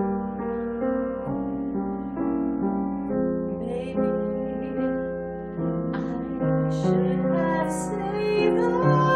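Piano playing slow, sustained chords, with a woman's voice coming in a few seconds in to sing a slow ballad line over it.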